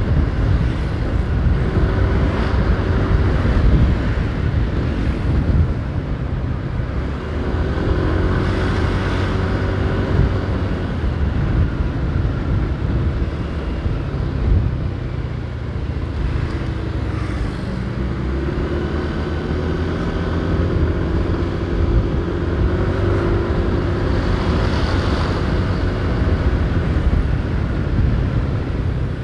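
Riding a motorcycle in city traffic: steady wind and road noise on the microphone, with an engine note rising and falling a few times as the bike or nearby vehicles speed up.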